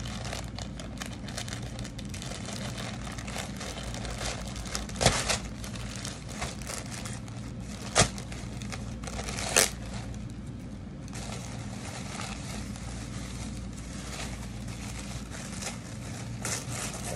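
Thin packaging wrap crinkling and rustling as it is handled and pulled open by hand, with a few sharper crackles about 5, 8 and 9½ seconds in, over a steady low hum.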